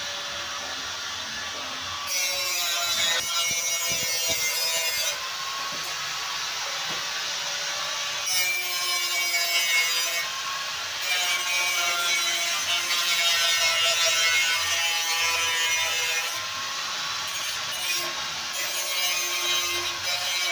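Handheld angle grinder working the metal of a truck radiator tank, a loud abrasive whine. It comes in several passes with short let-ups between.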